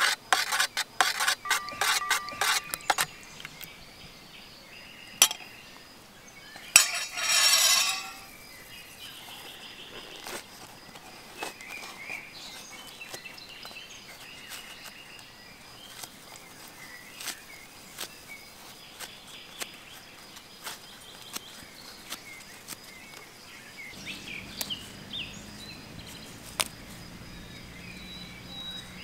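A metal spoon clinks rapidly against steel bowls for the first few seconds as broth and mashed meat are served. Two sharp clinks follow around five and seven seconds in, along with a noisy rush lasting about a second. After that come soft scattered ticks of bread being crumbled into the bowl, over outdoor ambience with faint birdsong.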